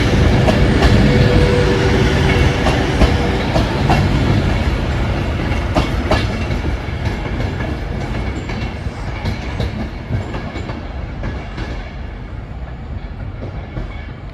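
A train running on the rails, its wheels clicking over the track joints, the noise slowly fading as it draws away.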